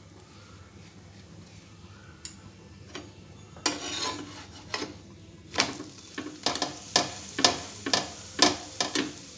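Paratha sizzling on a hot tawa as a spatula slides under it and flips it. This is followed by a quick run of about ten short scrapes and pats of the spatula against the paratha and pan, roughly three a second.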